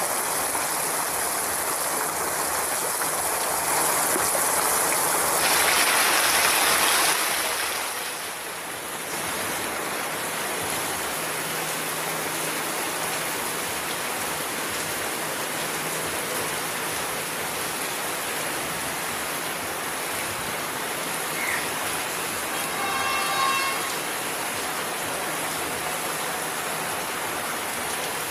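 Heavy rain pouring steadily, with the low hum of a CRRC S14A diesel multiple unit passing slowly beneath it. The rain swells for a few seconds about five seconds in, and a short pitched tone sounds about 23 seconds in.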